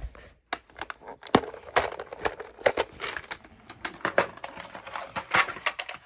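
A hard plastic parts organizer being handled and opened, with loose Wago lever connectors clicking and rattling inside as they are picked through: a run of irregular small clicks.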